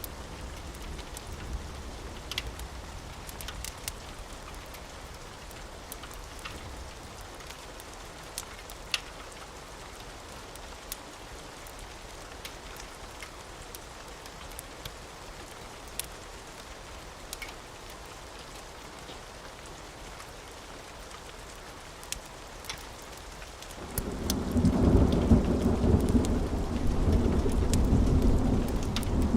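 Steady rain with scattered sharp crackles and pops from a wood fire. A loud, low thunder rumble rolls in about five seconds before the end and is the loudest sound.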